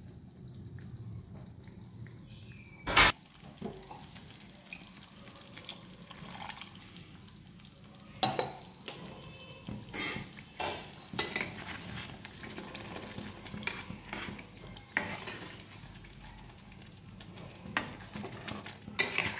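Metal ladle stirring thick curry gravy in a stainless steel kadai, scraping and knocking against the pan now and then, the sharpest knock about three seconds in.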